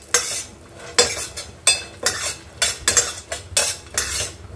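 Steel spoon scraping and stirring chopped nuts around a stainless steel frying pan while they roast in ghee, in short strokes about twice a second.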